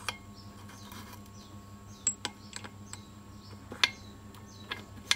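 Steel gearbox gears and shafts of a Modenas Kriss motorcycle clicking and clinking against each other and the engine case as they are fitted by hand. A handful of sharp, irregular metal clicks, the loudest around two seconds and four seconds in.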